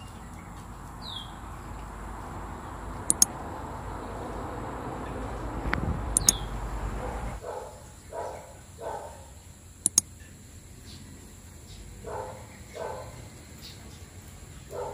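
A low rumble builds for about seven seconds and cuts off suddenly, with a few sharp clicks and a couple of high bird chirps. After it stops, a dog gives short yelps, mostly in pairs.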